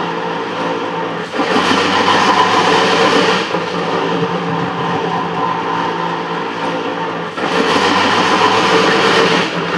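A metal planer running, its table reciprocating under the tool while taking a light cut on cast iron. A steady machine hum, with a louder, harsher stretch lasting about two seconds that comes twice, about six seconds apart, as the table strokes.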